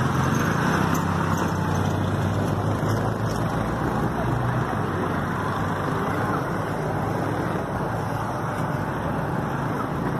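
Street traffic noise: the low engine hum of a passing auto-rickshaw fades away about halfway through over a steady rush of road noise.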